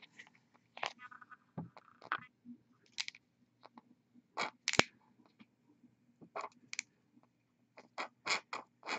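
Light, irregular clicks and taps, about fifteen of them scattered through, the sharpest a single click about halfway through, over a faint low hum.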